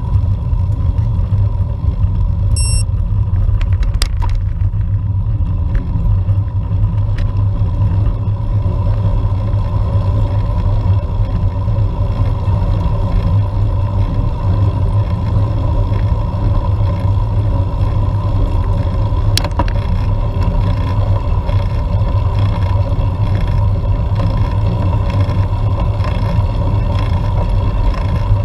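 Steady low rumble of road and wind noise on a bicycle-mounted action camera climbing with a group of road cyclists, with a couple of sharp clicks and a brief high beep a few seconds in.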